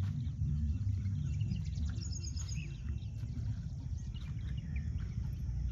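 Wild birds around a lake chirping and calling in scattered short notes, over a low steady background rumble.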